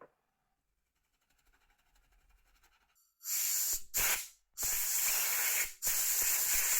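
Air duster blowing dust out of the iPhone's earpiece and front-camera parts in four hissing bursts. The first, about three seconds in, is short; the last two are longer, about a second each. A faint hiss comes before them.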